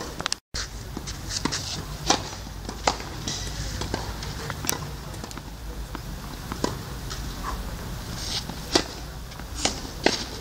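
Tennis rally on a clay court: sharp racket-on-ball hits every second or two, with shoes scuffing and sliding on the clay between them.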